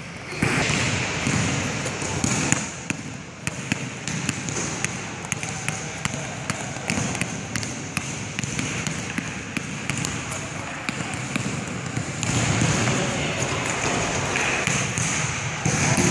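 Basketball dribbled repeatedly on a wooden gym floor, a quick run of sharp bounces during ball-handling moves.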